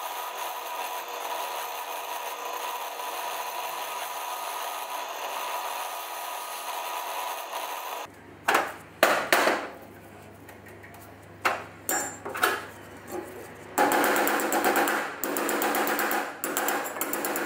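Workshop tool sounds in three parts. First about eight seconds of a steady machine whir with a held tone, then a handful of sharp knocks like hammer blows, then from near 14 seconds a few seconds of fast, dense rasping.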